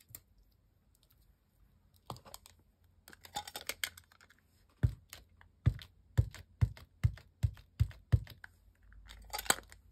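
Rubber stamp on an acrylic block tapped repeatedly onto an ink pad to ink it: about eight sharp, dull taps, two or three a second, after some light clicking and handling of the block.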